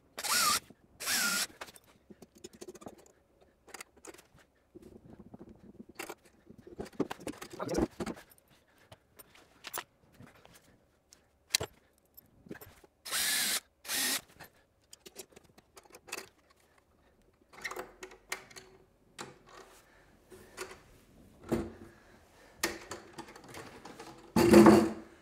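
Cordless drill run in short bursts, twice about a second in and twice more around halfway, boring pilot holes in the timber legs for screw-in hook eyes. In between come small clicks and knocks of handling, and near the end a louder knock as the folding wooden blackboard frame is swung open.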